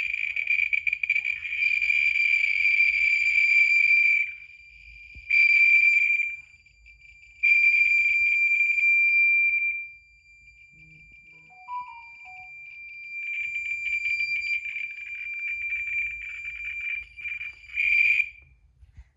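Geiger counter sounding fast over uraninite ore, its clicks crowding into a continuous high-pitched buzzing tone that shows strong radioactivity. The buzz cuts out and comes back several times, and thins to a faint tone for a few seconds about ten seconds in.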